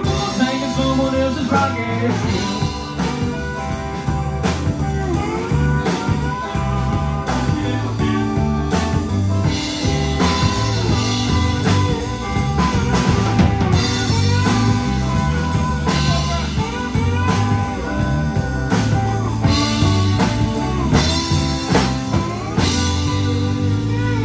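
Live rock band playing: electric guitar lead with bending, sliding notes over electric bass and a drum kit keeping a steady beat.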